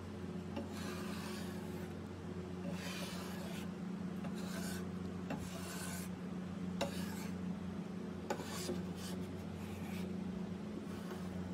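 Metal scraper blade pushed across a wooden cabinet top, scraping off paint softened by chemical stripper in about six strokes a second or two apart, with a couple of sharp clicks from the blade. A steady low hum runs underneath.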